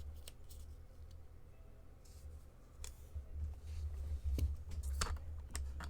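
Scattered light clicks and taps from handling on a table, more of them in the second half, over a low steady electrical hum.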